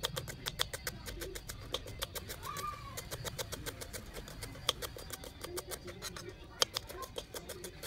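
A kitchen knife chopping lemongrass on a round chopping board: quick, even knocks of the blade through the stalks onto the board, about six a second, with a few harder strokes.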